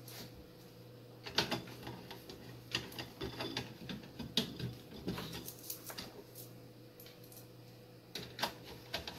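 Irregular light clicks and taps of screws and a screwdriver on a satellite receiver's metal chassis as the screws are fitted, over a faint steady hum.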